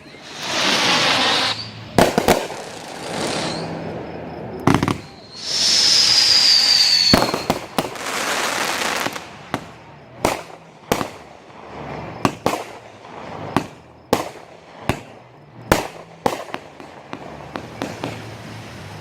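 Aerial fireworks going off. Stretches of crackling hiss mix with sharp bangs, and a high whistle falls slightly in pitch around six seconds in. After that comes a run of separate sharp bangs, roughly one a second.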